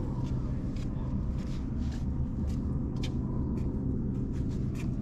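Steady low rumble with a faint steady hum in it, overlaid by scattered light clicks.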